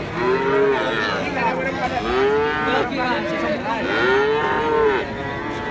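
Young calf mooing three times, each call about a second long, rising and then falling in pitch.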